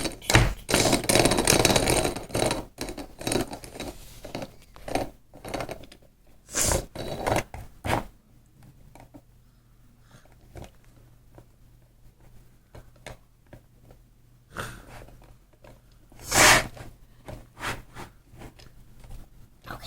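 Play-Doh and plastic toy molds being handled and pressed on a tabletop: scattered scrapes, rustles and taps, busiest in the first few seconds, with one louder scrape about sixteen seconds in.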